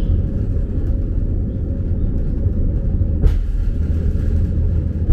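Hakone Tozan Railway electric train running along the track, heard from inside the cab as a steady low rumble, with a single sharp knock about three seconds in.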